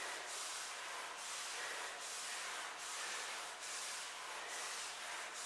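A man breathing hard in a steady rhythm of short, hissing breaths while exercising.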